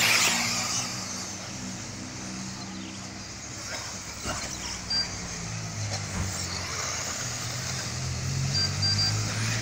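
Electric four-wheel-drive off-road RC buggies racing: high-pitched motor whine and tyre noise, loudest in the first second as cars pass close, then further off. A steady low hum runs underneath, and a few short high beeps sound midway and again near the end.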